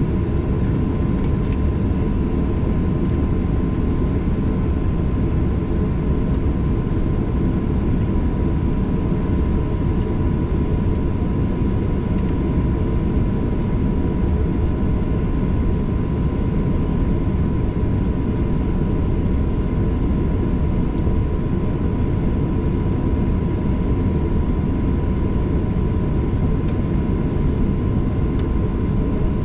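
Steady cabin noise inside a Boeing 737-800, its CFM56 jet engines and airflow making a constant low rumble with a thin steady high tone running through it.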